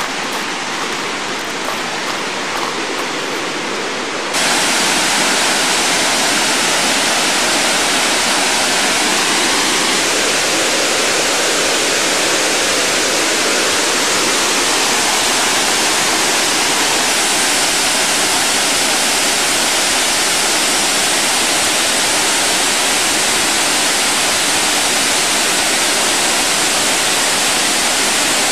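Steady rushing water, loud and even, like a waterfall or fast river. About four seconds in it cuts suddenly to a louder, brighter rush.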